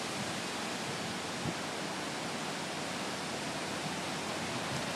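A steady, even hiss of water from a flooded street, with no distinct events standing out.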